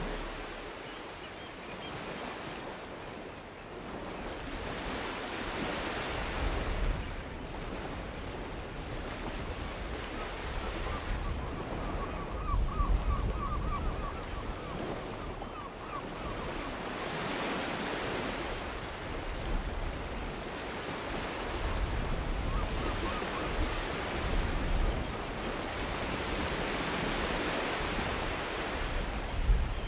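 Sea waves washing against a rocky shore, surging louder and easing back every five seconds or so, with some wind.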